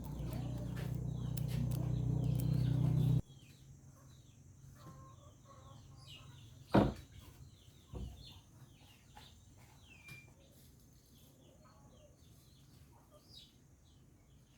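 A low machine-like hum grows louder and cuts off abruptly about three seconds in. Near the middle comes a single sharp crack, then a lighter knock about a second later. Chickens cluck and small birds chirp throughout in the background.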